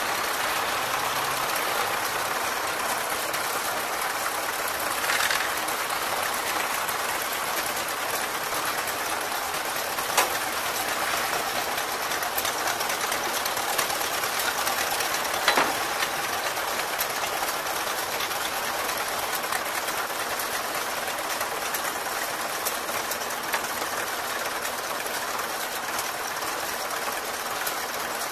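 Vintage tractor engine running steadily at idle, a fast even mechanical clatter.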